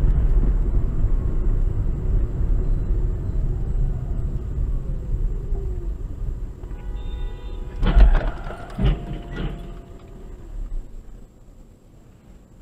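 Car driving and slowing, its engine and road rumble fading, then a brief horn-like tone and, about eight seconds in, a loud crash: a heavy bang followed by two more impacts about a second apart as a vehicle ahead rolls over onto its side.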